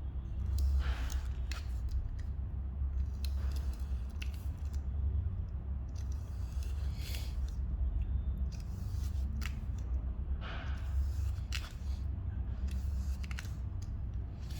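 Kinetic sand being cut, giving irregular soft crunching and scraping strokes, a few of them louder than the rest. A steady low hum runs underneath.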